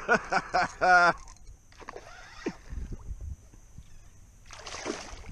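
A person's excited voice in the first second, untranscribed. About four and a half seconds in comes a short splash: a redfish hooked on a topwater lure thrashing at the surface beside the kayak.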